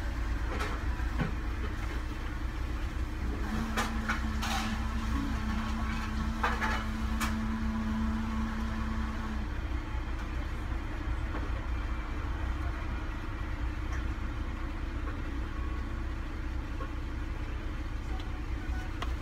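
Car engine idling, heard from inside the cabin as a steady low rumble. A steady hum joins for about six seconds in the middle, and a few light clicks and knocks come in the first half.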